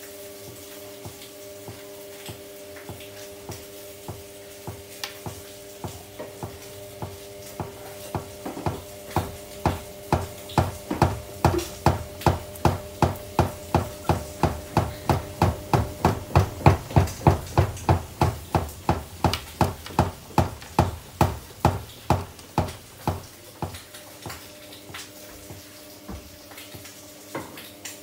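Samsung front-loading machine's drum turning over a steady motor hum, the load knocking against the drum about twice a second. The knocks build up to a loud peak through the middle, then fade away.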